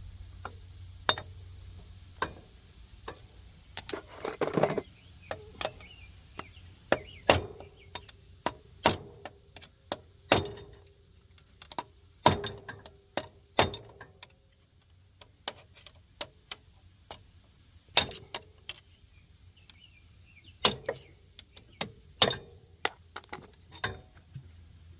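Irregular sharp metal knocks and clanks, roughly one every second, some ringing briefly, from hand tools working on an ATV's CV axle and hub, with a short scraping rattle about four seconds in.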